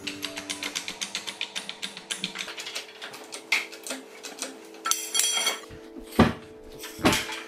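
Hydraulic bottle jack with a steel toe-jack attachment being worked by its handle: a quick, even run of small metallic clicks, then scattered clicks, with two louder metal knocks near the end.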